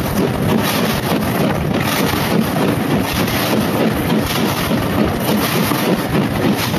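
Steam train running along the line, its noise mixed with heavy wind buffeting a microphone held out of a carriage window.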